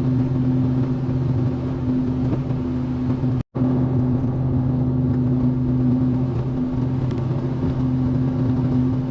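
Excavator's diesel engine running at a steady, deep hum. The sound drops out for an instant about three and a half seconds in.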